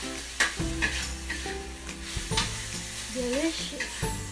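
A metal spoon scraping and clinking against a plate with a few sharp clicks, over background music of held notes.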